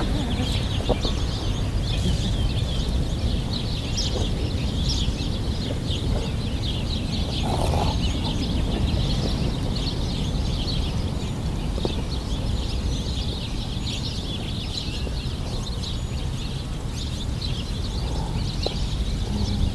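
A continuous chorus of many small birds chirping, over a steady low rumble.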